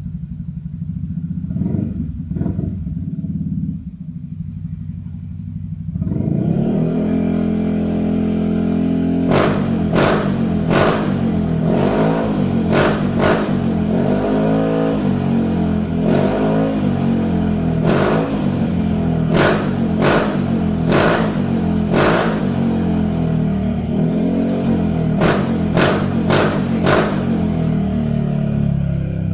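Yamaha XMAX 300 scooter's single-cylinder four-stroke engine running through a GP Racing full titanium exhaust: idling at first, then from about six seconds in revved in repeated short throttle blips, the pitch rising and falling.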